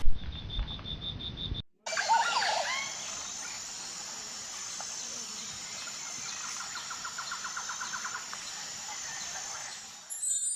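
Birdsong over a steady high insect drone. In the first couple of seconds a high insect note pulses evenly. After a brief cut come a few bird calls, and later a rapid bird trill of about ten notes a second lasting around two seconds.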